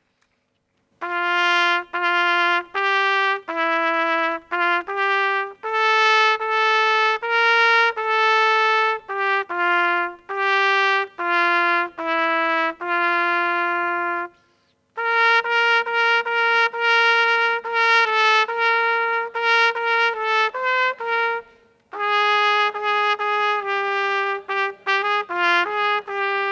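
A solo brass instrument plays a slow call of single held notes in three phrases, with short breaks about 14 and 21 seconds in.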